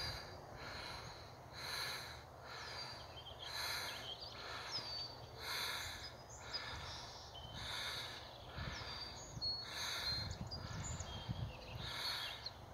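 A person breathing close to the microphone, a soft hiss that swells about once a second, with birds chirping now and then. A few low rumbles of wind on the microphone come in the second half.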